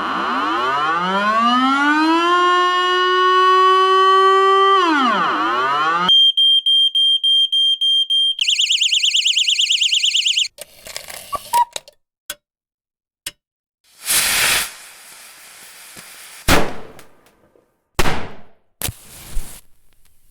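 A string of alarm sound effects. First a siren winds up in pitch, holds for a few seconds and winds down. Then about ten rapid high electronic beeps, a fast warbling alarm tone, and after a pause some scattered clicks and several short rushing noise bursts.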